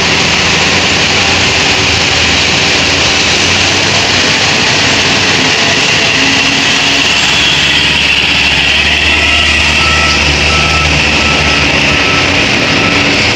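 Diesel engine of a loaded Mitsubishi Fuso dump truck running steadily as it drives away over muddy ground. A reversing alarm beeps repeatedly over the last few seconds.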